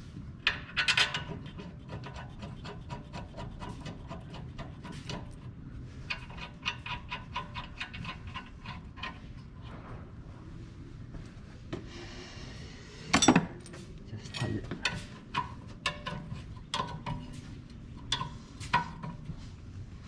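Hand tools fitting the brake caliper bracket: runs of quick ratchet-wrench clicks as the bracket bolts are turned, with scattered metal clicks, and one louder knock about two-thirds of the way through.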